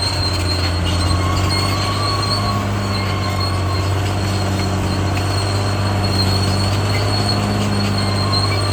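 CAT D6R XL crawler bulldozer's diesel engine running with a steady low drone, while its steel tracks give a continuous high metallic squeal and whine.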